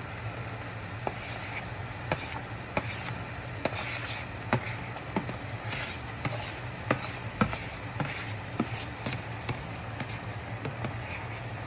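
Chopped onions sizzling in hot spiced oil in a pan, with a spoon clicking and scraping against the pan at irregular moments as they are stirred. A low steady hum runs underneath.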